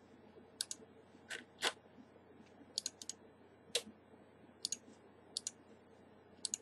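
Computer mouse button clicking, about eight sharp clicks, several in quick pairs, over a faint steady background hiss.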